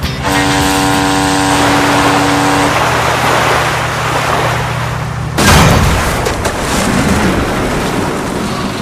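Cartoon ship sound effects: a cargo ship's horn sounds one long blast of about two and a half seconds over a steady low engine drone and rushing water. About five seconds in comes a sudden loud crash, the loudest moment, as a tugboat rams the ship's hull, followed by surging, splashing water.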